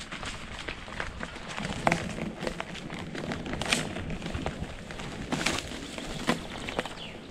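Bicycle being ridden: irregular clicks and rattles of the bike over a steady rushing noise of wind and tyres.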